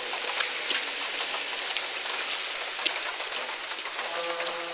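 Steady rain falling, an even hiss scattered with small drop patters. Near the end a short low hum of a few steady tones sets in.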